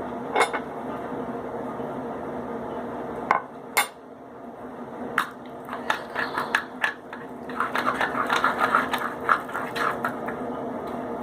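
A utensil clinking and scraping against a mixing bowl as body wash and salt are stirred into slime: a few separate knocks at first, then a quick run of clinks for about three seconds near the end.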